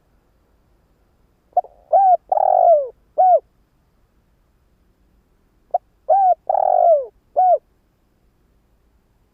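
Spotted dove (cu gáy) cooing: two phrases about four seconds apart, each a short note followed by three arched coos. It is a decoy dove's call, used to draw in and stir up wild doves.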